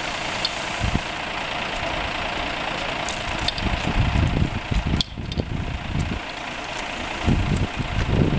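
Fire pump engine running steadily, with wind buffeting the microphone in low gusts. A few sharp clicks come around the middle.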